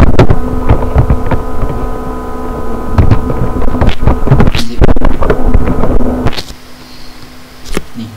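Computer keyboard keys clicking, irregular, over a loud steady buzz that cuts off about six seconds in.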